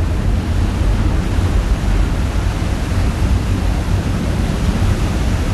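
Churning propeller wash rushing along a ferry's hull: a steady rush of water over a constant low rumble.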